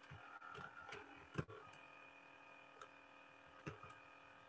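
Near silence with a few faint, short clicks from a computer keyboard and mouse, the sharpest about one and a half seconds in.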